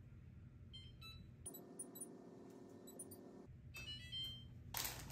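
Electronic oven control panel beeping as its touch buttons are pressed to set the bake temperature: short high beeps about a second in and again near four seconds. A louder rustling noise starts just before the end.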